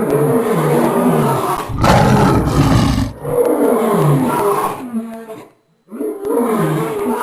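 Lion roars, several in a row, each a deep call breaking into falling grunts. There is a brief silent break about five and a half seconds in before the next roar.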